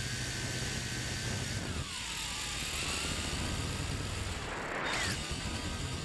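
Wltoys V262 quadcopter's motors and propellers whining steadily, picked up by the Mobius camera mounted on the drone. The pitch drops about two seconds in and rises sharply near five seconds as the throttle changes.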